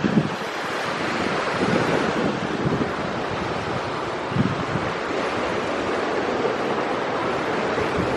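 Steady rushing of surf and wind, with gusts buffeting the microphone now and then.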